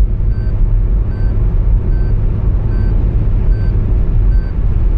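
Inside a car at highway speed: steady low road and engine rumble, with a short electronic beep repeating about every 0.8 s. This is the overspeed warning chime that cars in India sound continuously above 120 km/h.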